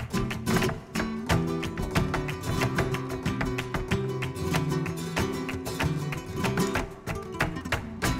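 Flamenco played on two acoustic guitars, with a dense run of sharp hand claps (palmas) and other percussive strikes over the strummed and picked notes.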